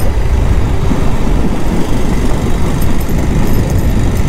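Motorcycle in motion: its engine running and wind rushing over the bike-mounted microphone make a loud, steady rumble.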